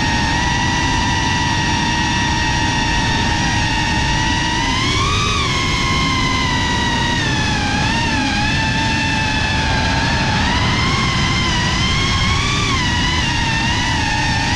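FPV quadcopter's brushless motors and propellers whining steadily, the pitch swelling and dipping with throttle about five seconds in and again later, over a low rush of wind.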